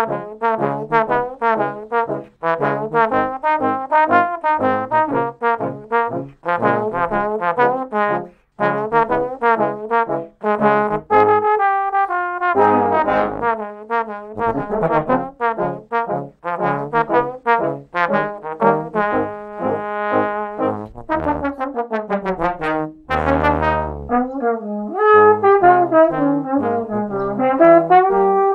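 Trombone quartet, three tenor trombones and a bass trombone, playing a pop-song arrangement in four parts: short detached notes at first, then longer held chords about halfway through, with a brief sliding figure over a low bass note later on.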